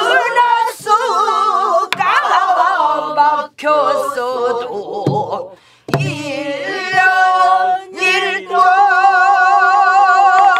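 Korean traditional folk singing with no accompaniment heard: a voice sung with wide, shaking vibrato in phrases broken by short breaths, ending on a long held note from about eight seconds in.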